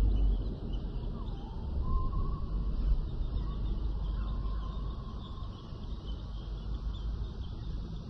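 Prehistoric jungle ambience soundscape: a low steady rumble under faint high chirping, with a faint drawn-out animal call that dips in pitch and then holds through the first few seconds. A louder deep rumble fades away just as it begins.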